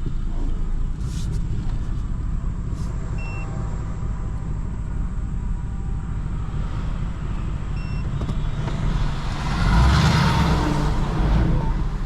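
Vehicle engine running with a steady low rumble. About ten seconds in, a louder rush of vehicle noise swells and then fades.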